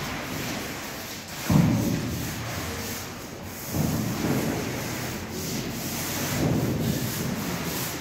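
Grout being worked across a tiled floor: a rough scraping rub in long strokes, about one every two to three seconds.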